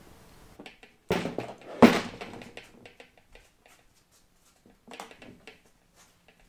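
Metal knocks and clicks from a Runva 11XP winch's gearbox housing being turned to a new position on the motor: two sharp knocks about a second in, the second louder, then light taps and clicks with another small cluster near the end.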